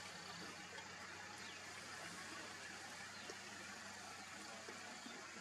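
Faint, steady background hiss of open-air ambience, with no distinct sound standing out.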